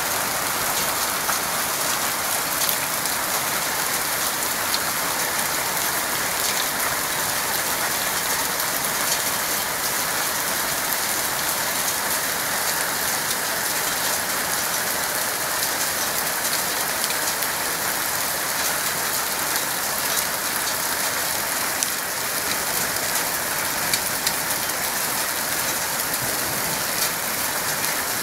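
Hail and heavy rain pelting down: a dense, steady hiss dotted with many sharp ticks of hailstones striking.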